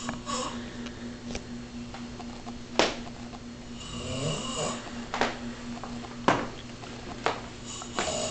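Heavy snoring: a long rasping snore about four seconds in, and several short, sharp snorts a second or so apart, which are the loudest sounds.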